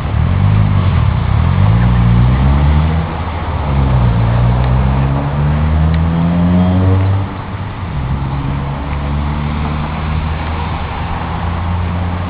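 A motor vehicle's engine accelerating through its gears: the pitch climbs, falls back at a gear change about three seconds in, climbs again, falls again about seven seconds in, then runs steadily.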